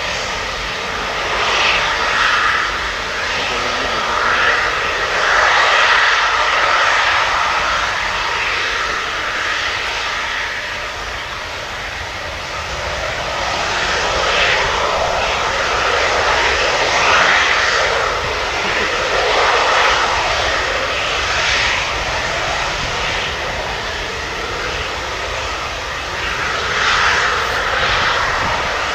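Boeing 767-200ER's twin jet engines running at low thrust as the airliner taxis on the runway: a steady jet noise that swells and eases every few seconds.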